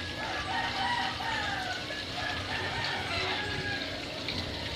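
Chickens calling: a rooster crowing and hens clucking, a string of short calls that rise and fall in pitch, most of them in the first half.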